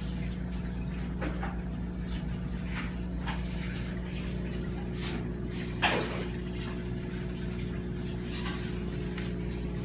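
Aquarium filtration equipment (pump and sponge filter) running with a steady hum and light water sounds. There are a few faint ticks and one short louder sound about six seconds in.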